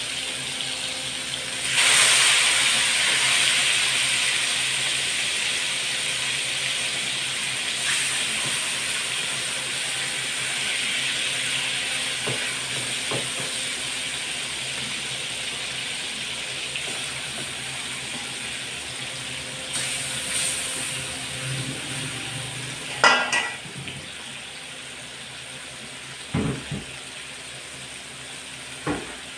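Marinated pork liver slices sizzling in hot rendered pork fat in a wok as they are laid in one after another. The sizzle flares loudly about two seconds in and again around twenty seconds, then slowly dies down. Metal tongs click a few times near the end.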